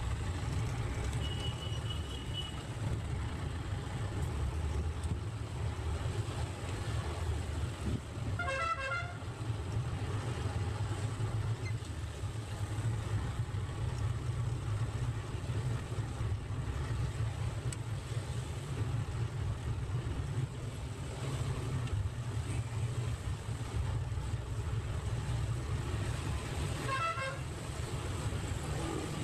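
A diesel passenger jeepney's engine and road noise rumble steadily, heard from inside the open-backed passenger cabin. A short wavering vehicle horn sounds twice, about nine seconds in and near the end.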